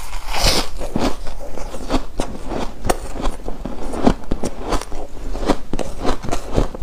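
A mouthful of foam ice being chewed, giving a dense run of crisp crunches and crackles, several a second.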